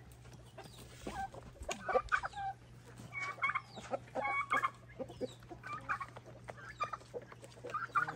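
Chickens clucking: short clucks in little bursts about every second, over a low steady hum.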